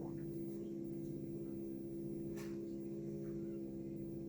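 A chainsaw running at steady revs in the background, heard as a faint, even hum of several tones. There is a light click about two and a half seconds in.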